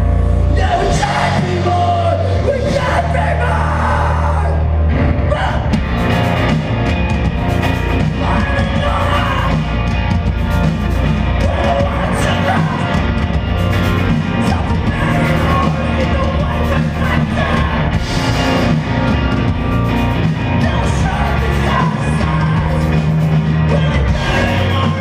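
Live hardcore punk band playing at full volume: distorted electric guitars, bass and drums, with yelled vocals, in a large hall.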